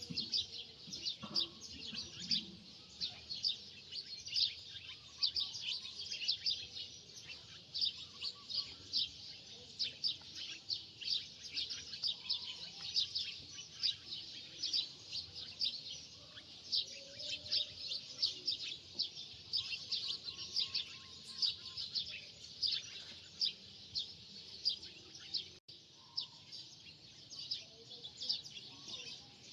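Many small birds chirping rapidly and continuously, a dense chatter of short high chirps.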